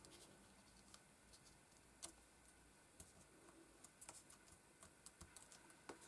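Faint, scattered little ticks and taps of card jigsaw puzzle pieces being picked up, slid and pressed into place by hand on a cutting mat, a little busier near the end.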